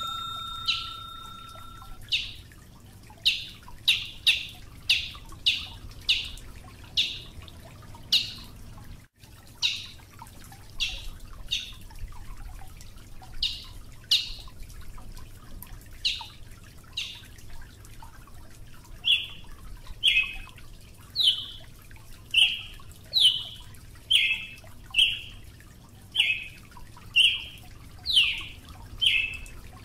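Brazilian tanager (Ramphocelus bresilius) calling: a long series of short, sharp notes, about one or two a second, some dropping quickly in pitch.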